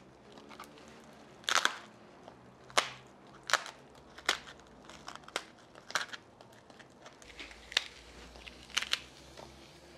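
Crisp fried pork rind (chicharrón) snapped by hand into small pieces, a sharp crackling crunch about once a second.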